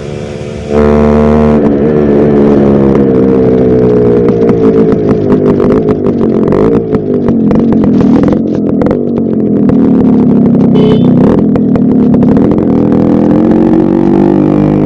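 Yamaha RX100's two-stroke single-cylinder engine running while the motorcycle is ridden, starting abruptly about a second in. Its pitch falls and rises several times with the throttle and gear changes.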